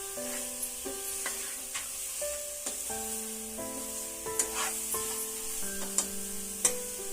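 Masala and mutton frying in oil in a kadhai, a steady sizzle, with a spoon stirring and scraping against the pan in sharp clinks several times, the loudest in the second half. A soft instrumental melody of held notes plays in the background.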